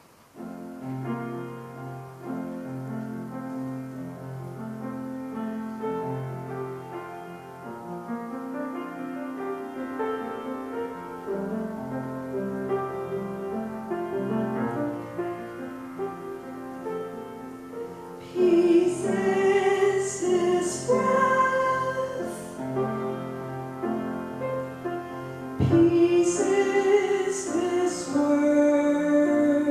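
Grand piano playing a gentle, slow introduction. About two-thirds of the way in, female singing enters over the piano accompaniment.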